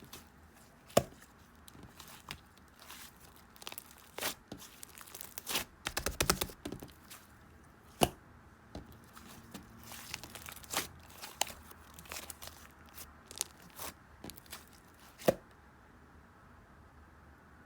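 Irregular crinkling and rustling with sharp clicks and taps, including a quick run of clicks about six seconds in.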